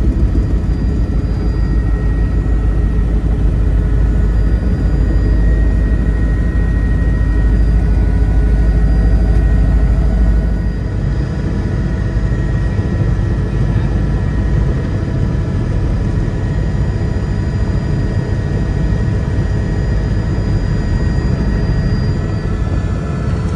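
Helicopter running as it comes in to land: a steady, fast-pulsing low rotor rumble under a constant high turbine whine. About ten seconds in, the low rumble drops away sharply while the whine carries on.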